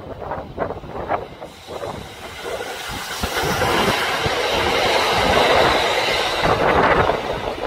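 A train running on its rails: wheel-and-rail noise that swells about halfway through and eases near the end, with scattered clicks of the wheels over the track.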